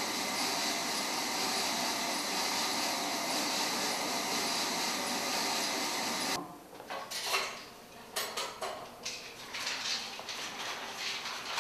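Cinema film projector and platter system running with a steady mechanical whir, which stops abruptly about six seconds in. After that come irregular light metallic clicks and clinks, the sound of film and reels being handled.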